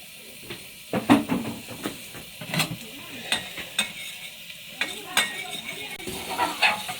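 A spatula clanking and scraping in a wok as river snails in their shells are stir-fried, over steady sizzling. There are several sharp strikes, the loudest about a second in.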